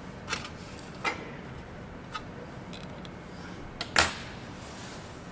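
A few light clicks and taps of metal dissecting instruments, forceps and scissors, handled over the dissecting board, the loudest about four seconds in.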